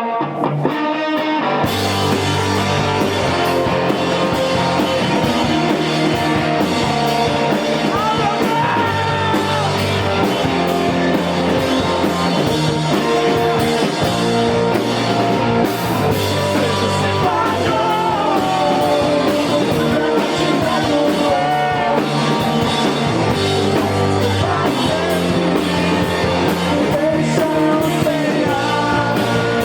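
Live emo rock band playing a song: electric guitars, bass and drum kit with a sung lead vocal. The full band comes in about two seconds in, after a thinner opening.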